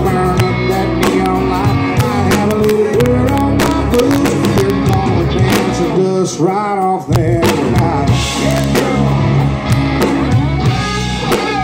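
Live rock band playing loudly with electric guitars, bass guitar and drum kit. About six seconds in the bass and drums briefly drop out under a bending guitar line, then the full band comes back in with crashing cymbals.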